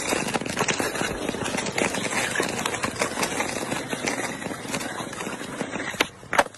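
Skateboard wheels rolling over clear lake ice: a steady gritty rumble full of small clicks. Near the end the rolling eases, and two sharp knocks follow, the board's tail striking the ice.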